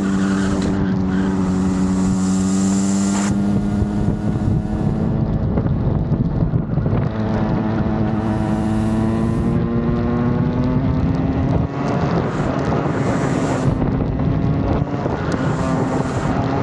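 Rotax kart's two-stroke engine running hard on track, its note climbing steadily as it accelerates. It falls away briefly about four seconds in, climbs again, and dips once more near twelve seconds. Wind buffets the microphone throughout.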